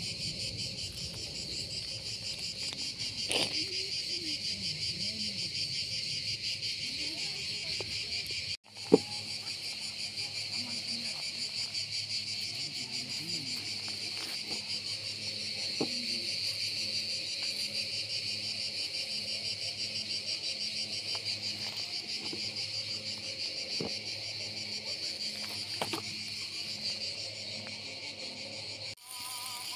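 Steady, high-pitched chorus of insects chirring, with a few faint clicks and one sharp click about nine seconds in.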